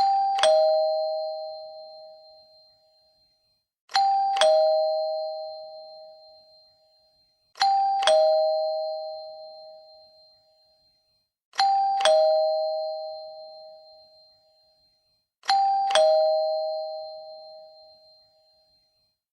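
Two-tone chime doorbell sounding ding-dong five times, about every four seconds: a higher note, then a lower one half a second later, each ringing out and fading away.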